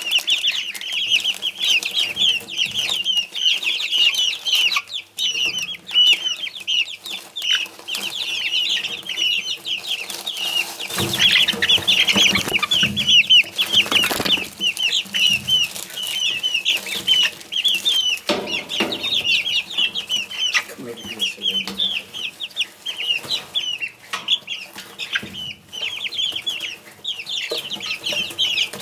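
Bantam chicks peeping constantly, many short high falling chirps overlapping several times a second. Near the middle there is a stretch of louder scuffling and rustling in the wood-shaving bedding.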